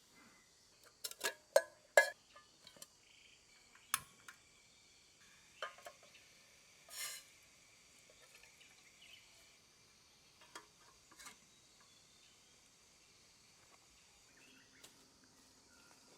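Steady high chirring of forest insects, with a quick run of sharp clatters and knocks about a second in, a few single knocks later, and a short scrape about seven seconds in.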